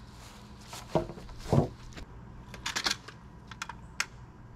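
A wooden girt board being lifted and set against wooden posts: two loud wooden knocks about a second in, then a run of light clicks and taps as it is shifted into place.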